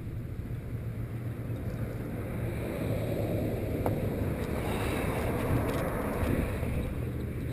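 Align T-Rex 450 Pro electric RC helicopter rotor spooling up, its whooshing growing louder and brighter about halfway through, with wind buffeting the microphone.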